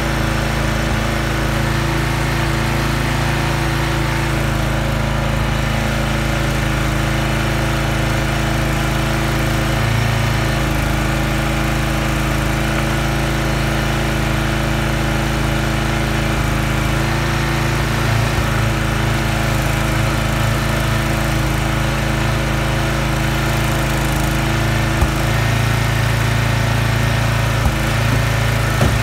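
Small gas engine of a Huskee log splitter running steadily, its note shifting a few times as the splitter works through rounds. A few sharp knocks near the end.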